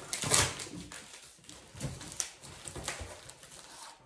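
Packing tape and plastic wrap being torn and rustled while a taped parcel is unwrapped: several short rips and rustles, the loudest just after the start.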